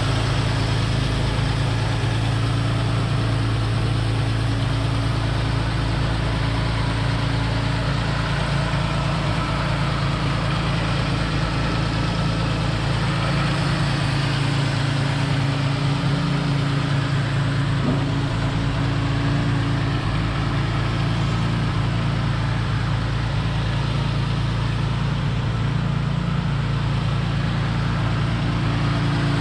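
1955 Jaguar XK140's 3.4-litre twin-cam straight-six running at a steady fast idle while still cold, its auxiliary starting carburettor holding the revs up.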